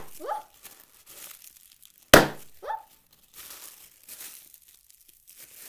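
Bubble wrap being squeezed and crinkled in the hands, with one loud, sharp pop about two seconds in as a bubble bursts. A brief rising squeal follows the pop.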